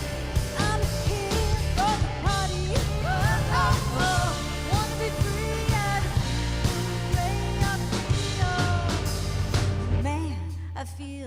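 Country band playing an up-tempo song with drums and a singing voice. About ten seconds in, the band stops and a low held note fades out.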